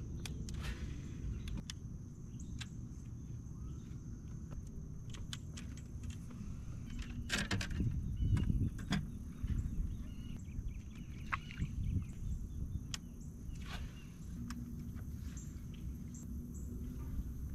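Low steady rumble of open-air ambience around a bass boat, with scattered clicks and knocks from an angler handling rod, reel and gear on the deck, busiest about halfway through. A faint steady high whine runs underneath, and a low steady hum joins near the end.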